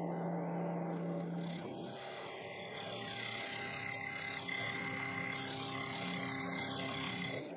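Wood lathe running with a steady motor hum and cutting noise. The mix of tones changes suddenly about a second and a half in and again near the end.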